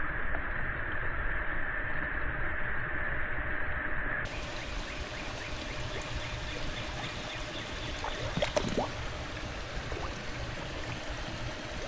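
Pond water sloshing and trickling around a swimmer. For the first four seconds it is muffled and dull, then it suddenly turns clear, with scattered small splashes.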